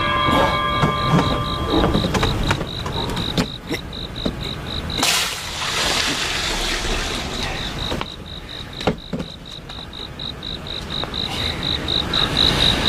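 Crickets chirping in a steady pulsing rhythm, about four chirps a second. About five seconds in there is a brief rush of splashing water, and a few wooden knocks come from drawing water at a well with a windlass and wooden buckets.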